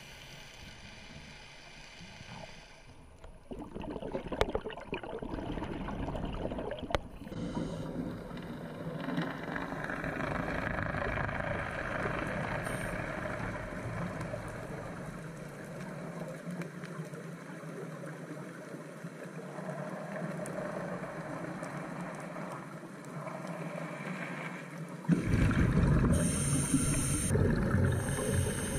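Underwater ambient noise picked up by a camera in a dive housing: a muffled, steady water wash with a faint low hum, shifting abruptly a few times and growing louder near the end.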